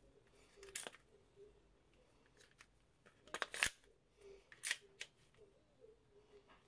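Handling clicks and clacks from the removed slide of an Archon Firearms Type B gas-blowback airsoft pistol as gloved hands turn it over, its parts knocking against each other; a few sharp clicks, the loudest cluster about three and a half seconds in.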